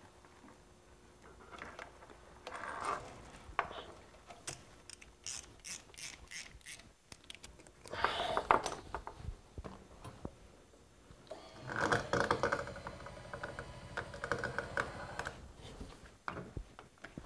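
Light metal clicks and rattles from handling a steel winch cable and the plow-mount hardware: a run of sharp clicks, a short louder clatter about eight seconds in, then a denser stretch of rattling a few seconds later.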